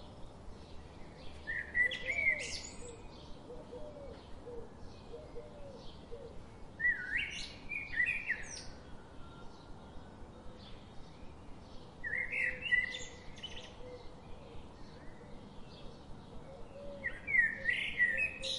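Birdsong: a short phrase of chirps sung four times, about every five seconds, over faint, rapid chirping in the background.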